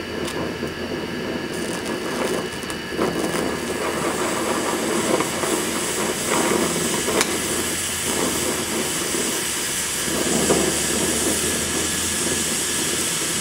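Oxyacetylene welding torch flame hissing steadily as a weld is laid with a filler rod, with one sharp click about seven seconds in.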